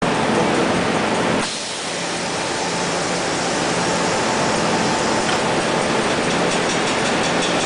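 Vacuum frying machine running: a loud, steady hiss with a machine rumble and a faint hum beneath. The low rumble drops a little about a second and a half in.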